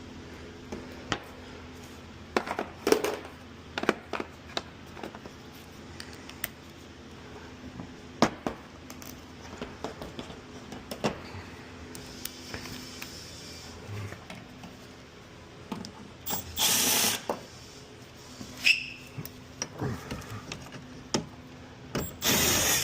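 Hand tools working the door hinge bracket bolts off: scattered clicks and clinks of a socket and ratchet on metal. Two louder rushes of noise, about a second each, come a little past the middle and at the very end.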